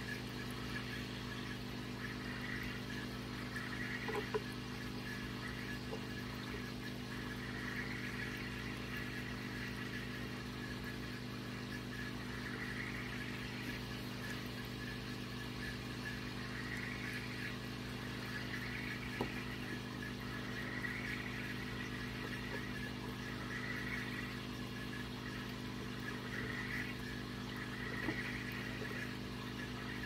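Small aquarium's hang-on-back filter (AT-301F) running: a steady electrical hum with water trickling from the outflow, swelling every couple of seconds, and a few faint clicks.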